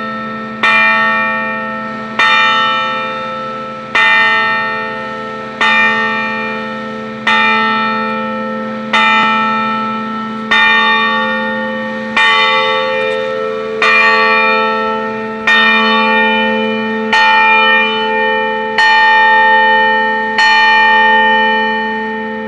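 Church bell tolling for noon, struck by its clapper about once every second and a half, each stroke ringing on into the next; the last stroke comes near the end and is left to fade.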